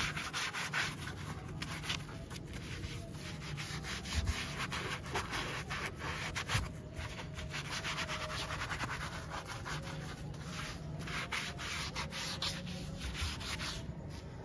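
Foam applicator pad rubbing over wet, bubbly plastic radiator shroud trim in a run of short, irregular strokes, spreading a spray-on dressing.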